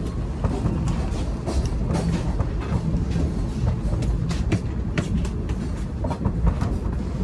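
Steady low rumble of a moving passenger train heard from inside the sleeper coach, with frequent irregular clicks and knocks from the wheels on the track and the carriage fittings rattling.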